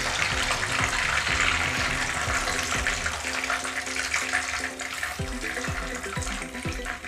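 Breaded chicken cutlets deep-frying in hot oil: a steady sizzling hiss that weakens over the last few seconds.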